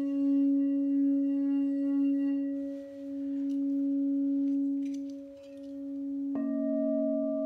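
Crystal singing bowl ringing with a sustained low tone and overtones that slowly swells and dips twice. About six seconds in, a second bowl is struck and a higher tone rings on above the first.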